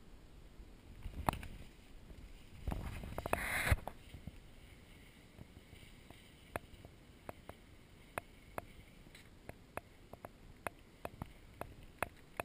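Movement noise from a skier standing on snow: a short scrape, then a louder rush of about a second as the skis and boots shift in the snow about three seconds in. After that come scattered sharp clicks and taps at irregular intervals.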